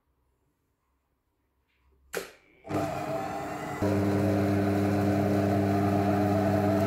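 Silvercrest Monsieur Cuisine Connect kitchen robot: a click, then its motor starts and spins the blades at speed 4, mixing flour, egg and milk into dough. The steady hum steps up louder about a second after starting and cuts off suddenly near the end.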